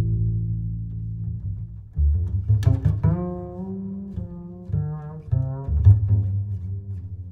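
Background music led by deep string bass notes, plucked and bowed, with a higher melody line joining about three seconds in.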